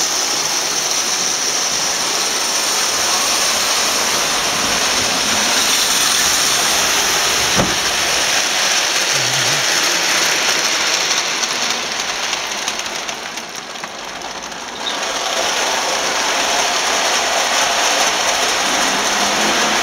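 Vintage Marx toy electric trains running on tinplate track: a steady whirring of the motors and rattling of the wheels. A single sharp knock comes about a third of the way in, and the sound grows quieter for a few seconds past the middle before returning to its earlier level.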